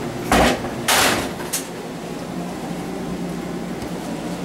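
A sharp knock followed by a longer clatter about a second in and a smaller click, then a steady low hum underneath.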